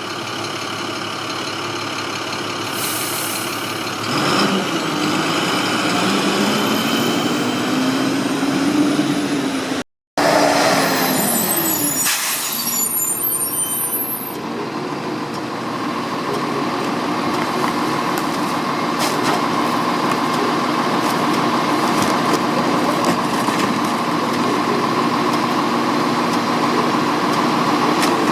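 Garbage truck running: its diesel engine hums while a pitch rises and falls as the truck works, with short bursts of air hiss. The sound drops out abruptly about ten seconds in, then the truck's engine carries on with a steady drone.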